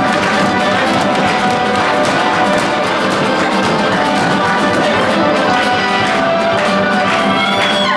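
Serbian folk dance music playing loudly and continuously, with a steady quick beat.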